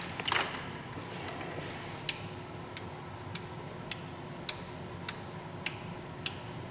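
Öhlins steering damper's adjuster knob being turned click by click through its detents, about eight sharp clicks evenly spaced a little over half a second apart, starting about two seconds in. The damping is being wound up from full loose toward 9 of its 18 clicks, the middle of its range.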